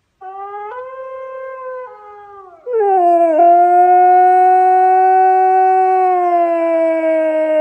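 A dog howling: a softer howl first, then a much louder, long howl from about two and a half seconds in that slowly falls in pitch.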